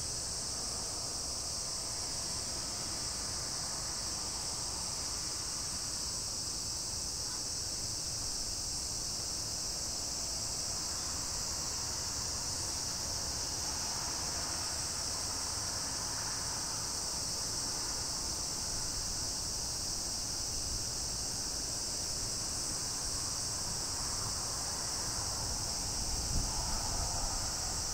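Steady, high-pitched drone of an insect chorus over a low rumble, with a brief low bump near the end.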